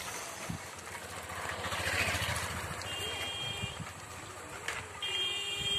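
A motorcycle passing on the road, its engine swelling and fading about two seconds in. It is followed by two short high-pitched horn beeps, one near the middle and one near the end.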